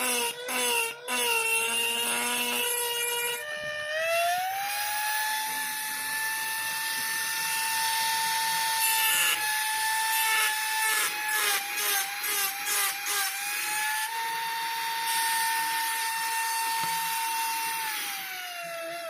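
Black and Decker rotary tool motor running with a steady whine. About three and a half seconds in its speed steps up to a higher pitch. Short clicks come in the first few seconds and again midway, and near the end the pitch starts to fall as the motor spins down.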